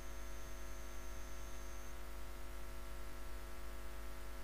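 Steady electrical mains hum with hiss, with a faint high whine that stops about two seconds in; no distinct stirring sounds stand out.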